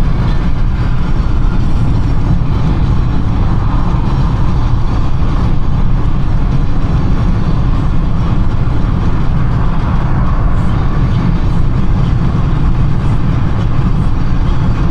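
Steady low rumble of a car driving at expressway speed, heard from inside the cabin: tyre and road noise with the engine running under it.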